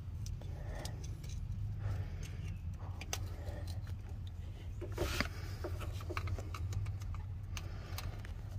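Small clicks and scrapes of a screwdriver and a plastic wiring plug being worked onto a Prius crankshaft position sensor, with a louder cluster of clicks about five seconds in, over a steady low hum. The new plug is tight and does not yet latch.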